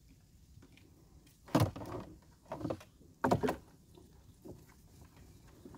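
Handling noise from tying live crabs in a small boat: a few knocks and scrapes against the boat's hull, the three loudest about one and a half, two and a half and three and a quarter seconds in, with lighter ticks between.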